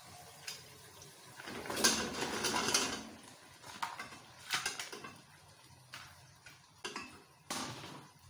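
Raw potato chunks tipped into a metal pot of fried masala: a clattering rush about two seconds in, lasting a second or so, then several sharp knocks of potato pieces and utensil against the pot.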